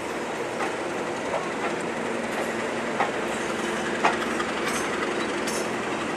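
Passenger coach rolling slowly behind a pair of class 37 diesel locomotives, with the steady drone of the English Electric engines and the wheels clicking sharply over the track about once a second.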